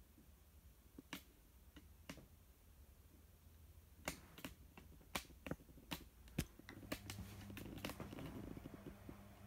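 Faint, scattered sharp clicks over quiet room tone, sparse at first and coming closer together about halfway through. A faint low hum comes in near the end.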